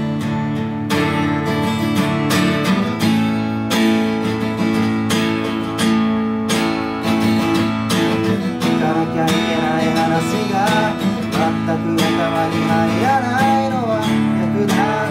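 Acoustic guitar strummed steadily in a song's rhythm, with a man's singing voice over it from about halfway through.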